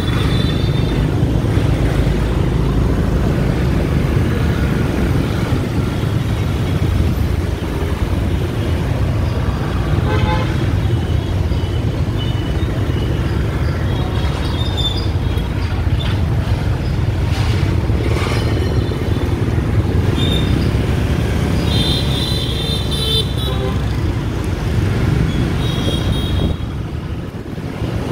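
Riding on a motorbike taxi through city traffic: a steady low rumble of the motorbike, road and passing air, with several short, high horn toots from scooters around it.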